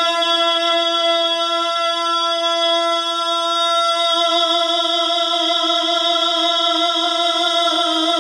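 A steady drone held on one note with its overtones, unchanging in pitch, backing a naat recital while the reciter pauses between lines.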